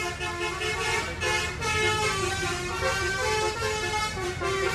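Basuri telolet horn, a set of electric trumpet horns on a vehicle, playing a melody note after note, over a steady low engine and traffic rumble.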